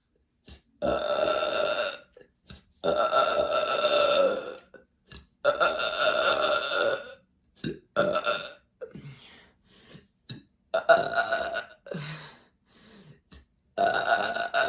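A woman belching over and over: about six long burps, the first three drawn out for a second or more each, the later ones shorter. She is letting out gas from a stomach full of fizzy sparkling water, which had been pressing painfully on her chest.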